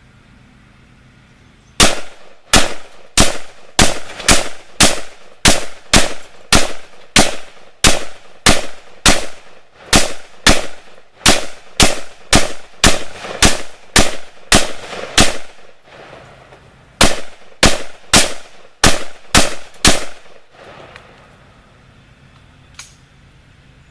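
Stag Arms AR-15 rifle firing .223 rounds in rapid semi-automatic fire, about two shots a second, some thirty shots with a short break about two-thirds of the way through before stopping.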